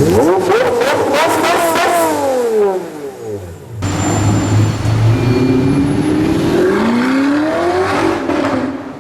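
Supercar engines in two back-to-back clips. In the first, an engine accelerates hard, its pitch climbing steeply and then falling away. After a sudden cut, a second engine runs steadily and then rises in pitch as it accelerates.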